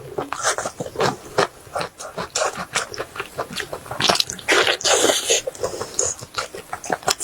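Close-miked chewing and lip-smacking of someone eating, a quick run of wet mouth clicks with a longer, noisier stretch about halfway through.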